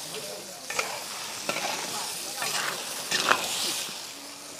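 Crayfish sizzling in a large wok while a metal spatula stir-fries them. The spatula scrapes and knocks against the wok about once a second, most sharply about three seconds in.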